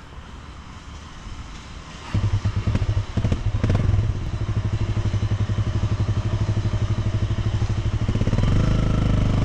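Motorcycle engine running with a steady, fast low pulsing. It becomes much louder about two seconds in, with a few knocks soon after.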